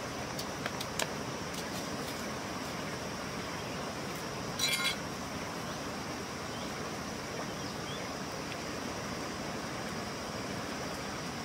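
Steady hiss of flowing river water, with a high, even band above it. A few light clicks near the start and a short, louder cluster of clicks about four and a half seconds in.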